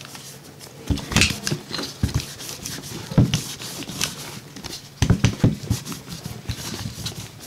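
Microfiber cloth rubbing over a handgun and the pistol being handled on a rubber mat: irregular rustling with soft knocks and clicks.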